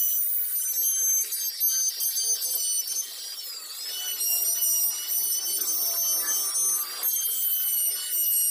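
Handheld electric plunge router running at high speed with a steady high-pitched whine as its bit cuts into a wooden plank. The sound eases and dips in pitch briefly about three to four seconds in.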